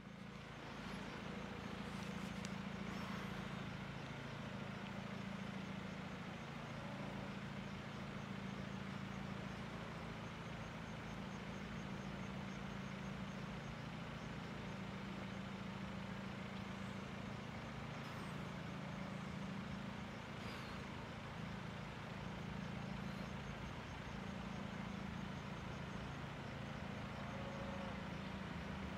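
MÁV class 460 'Szöcske' diesel shunting locomotive running as it approaches slowly, a steady low engine drone.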